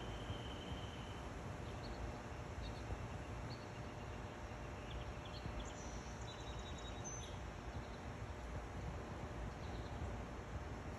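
Steady outdoor background noise, heaviest in the low rumble, with a thin high trill in the first second and a scatter of faint, short bird chirps through the middle.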